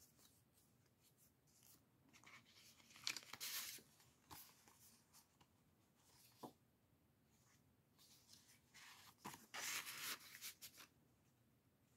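Faint rustling and sliding of paper as a junk journal's pages and a tuck card are handled: two stretches of rustling, about two seconds in and near the end, with a light tap between.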